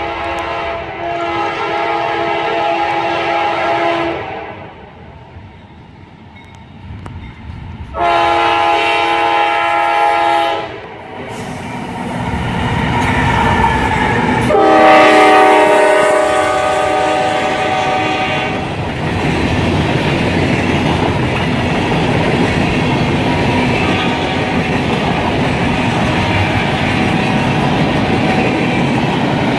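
Horn of a CSX GE AC4400CW diesel freight locomotive sounding three long blasts as the train comes up and passes close by, with the locomotive's engine and wheels growing louder toward the middle. After the last blast, freight cars roll past with steady wheel and rail clatter.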